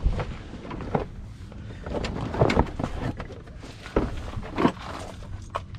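Scattered clicks and knocks of hand tools and bolts being handled while the brace is bolted up, with a few louder knocks about two and a half, four and four and a half seconds in.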